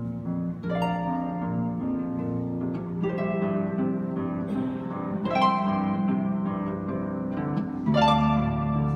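Concert harp played solo: plucked melody notes and chords ringing over sustained low bass notes, with fuller chords struck at about five and eight seconds in.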